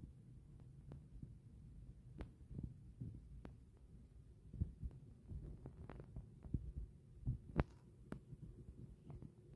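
Faint, scattered soft thumps and light paper taps as a postcard and a folded paper poster are handled and moved about on a tabletop.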